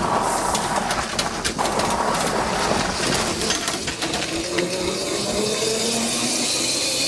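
Golf cart being driven, its motor climbing steadily in pitch as it picks up speed, with clattering and rattling throughout.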